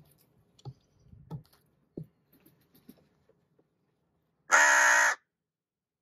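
Hooded crow giving one loud, harsh caw about four and a half seconds in. Before it come a few soft taps and knocks as the crow moves about on wood.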